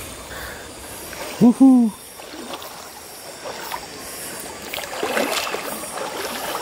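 River water sloshing and splashing around people wading chest-deep, with a short loud exclamation from a person about 1.5 seconds in and a burst of splashing about five seconds in.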